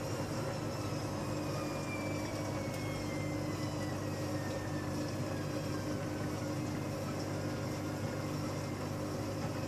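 Steady mechanical hum with a thin whine that falls slowly in pitch over several seconds.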